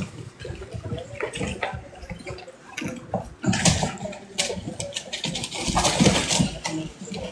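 Wet slurping mouth sounds and rustling from a wolfdog mother settling among her young puppies, in irregular short bursts.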